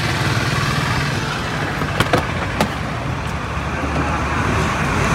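Mahindra Thar petrol engine running as the vehicle rolls slowly, a steady engine hum with tyre and wind hiss heard at the open side window. Two short clicks come about two seconds in.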